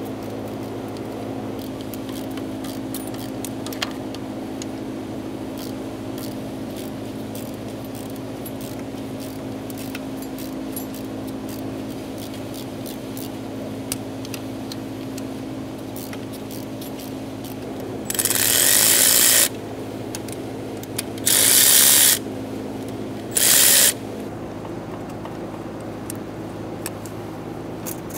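Faint scattered clicks over a steady low hum as the 13 mm high-pressure fuel pump mounting bolts are worked loose. About two-thirds of the way in come three short, loud bursts of a power tool, the first the longest.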